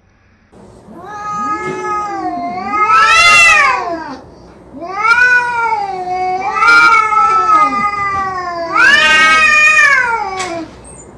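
Two cats in a face-off giving long, drawn-out yowls that waver up and down in pitch, about three long stretches one after another: the threat caterwauling of a territorial standoff.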